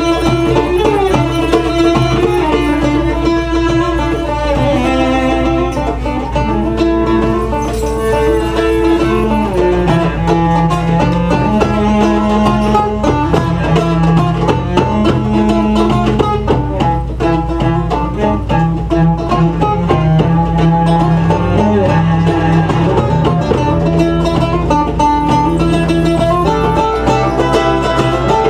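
Live acoustic band music: a plucked mandolin-type lute and bowed cello carry a melody over hand drum, with the ticking of finger cymbals.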